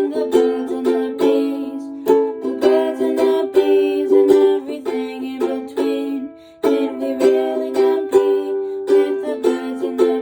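Ukulele strummed in chords, with a short break about six seconds in before the strumming starts again.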